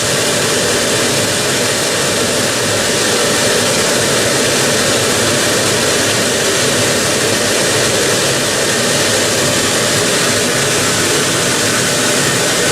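Gas-fired steam boiler's inducer fan and burner blower running steadily during the start-up test cycle, before ignition: an even, unbroken roar of moving air.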